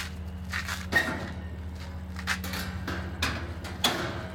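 A handful of light knocks and clicks, the sharpest about a second in, over a steady low hum.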